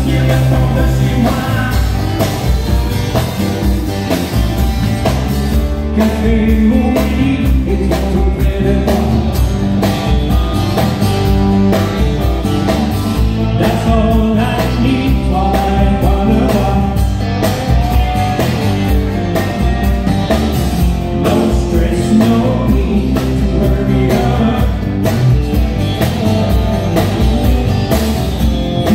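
Live country band playing: a male singer with acoustic guitar, backed by electric guitars and drums.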